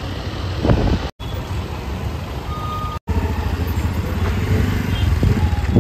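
Road traffic with motorbikes, scooters and cars running past, in a string of short takes that break off briefly about a second in and again about three seconds in. A short high beep sounds near the middle.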